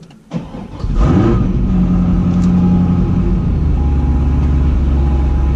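2005 Corvette's LS2 V8 starting after a brief crank: it catches about a second in with a start-up flare, then drops to a lower, steady idle about three seconds in. This time it fires right up, with no sign of its intermittent crank-but-no-start fault.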